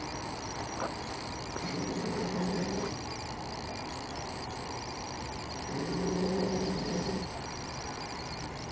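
Snoring: two drawn-out snores, each about a second long, roughly four seconds apart, with each intake rising over a steady background hiss.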